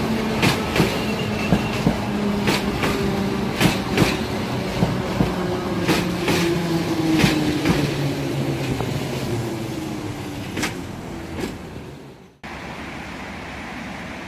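Kyiv Metro train running past along the open-air line: wheels clack over the rail joints and the motors hum, the hum slowly falling in pitch, and the sound fades as the last car goes by. Near the end it cuts abruptly to wind on the microphone.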